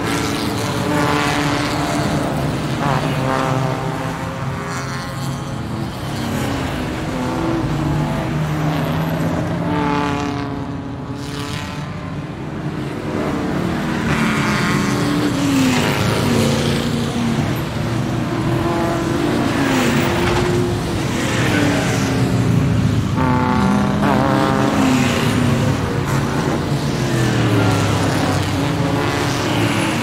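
Formula One car engines revving and passing, several at once. Their pitch rises and falls in overlapping sweeps.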